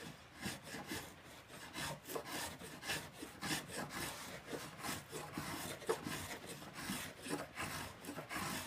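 Axminster Rider 102 apron plane cutting oak in short, quick strokes, each stroke a brief rasping swish as a shaving comes off.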